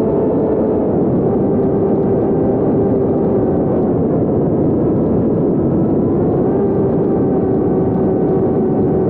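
HeeWing F1 foam FPV plane's electric motor and propeller at cruise: a steady whine over rushing wind noise, heard from a camera on the plane itself. The pitch dips slightly at the start and shifts a little again about six and a half seconds in.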